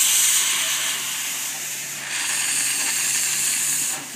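Steam hissing from the cylinder drain cocks of Isle of Man Railway No.10 'G H Wood', a Beyer, Peacock 2-4-0 tank engine. The hiss eases off for about a second, comes back strongly about halfway through, and cuts off just before the end.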